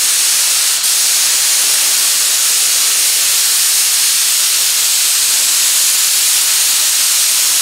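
Air hissing steadily from a touch-up spray gun as it lays a dry coat of epoxy primer, the air turned up so there is more air than paint. There is a momentary dip about a second in.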